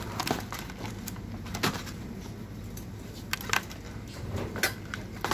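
Rigid clear plastic blister packaging around a wire barbecue grill basket clicking and crackling as it is picked up and handled, in irregular sharp clicks over a steady low hum.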